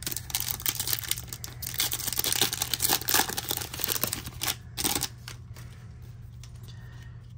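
A foil Topps Chrome trading-card pack torn open and its wrapper crinkled: a dense crackling rustle for about five seconds, then quieter handling of the cards.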